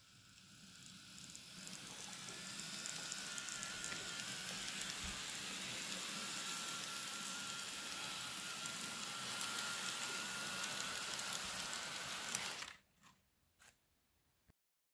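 N scale model train (Atlas ALP-45DP locomotive pulling multilevel coaches) running on model track: a steady rattle of small wheels on the rails with a faint wavering motor whine. It builds up over the first couple of seconds and stops abruptly about thirteen seconds in, just after a sharp click.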